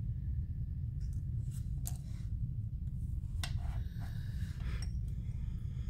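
Light paper-handling sounds: a few soft clicks and brief rustles of cardstock pieces being picked up and set down, over a steady low hum.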